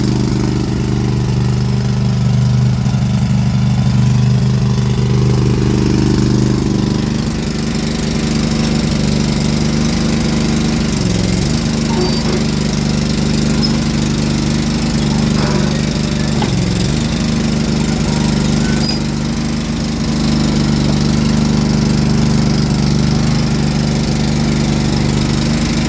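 Engine of a Ramrod 1150 mini skid steer running steadily, its note changing about a quarter of the way in and dipping briefly twice as the loader is worked.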